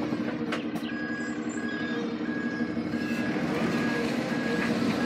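Lorry's reversing alarm beeping evenly over the steady run of its diesel engine, the beeps starting about a second in: the truck is backing up.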